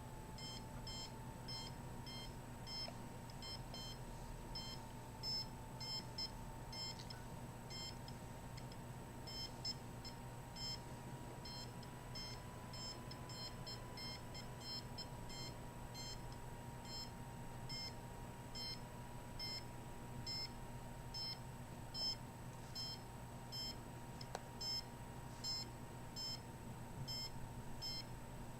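Handheld microwave (RF) meter beeping: short, high-pitched beeps at an irregular rate, sometimes several a second, as it picks up microwave signals. A faint steady tone and a low hum run beneath.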